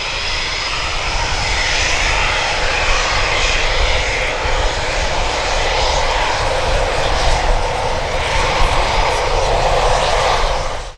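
Eurofighter Typhoon jet flying by: loud, steady jet noise from its twin EJ200 turbofan engines.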